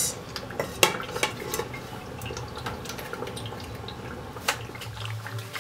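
An aluminium pot lid clanks down onto a pot of tomato stew, followed by a couple of light knocks. Then the stew simmers under the lid with faint bubbling and popping, and there is one more click about four and a half seconds in, as the electric stove's knob is turned.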